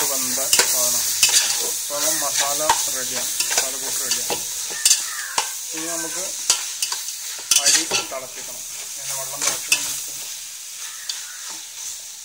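Onion-and-tomato masala sizzling and frying in a steaming pot while it is stirred, the spatula scraping and clicking against the pot. The sizzle slowly dies down toward the end.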